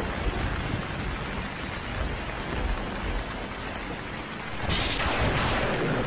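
Heavy rain pouring steadily, with a low rumble of thunder underneath; the downpour swells louder a little before the end.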